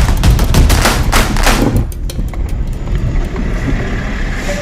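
A logging truck up close: a heavy low rumble with a fast run of sharp cracks for about the first two seconds, then easing to a steadier, quieter engine rumble.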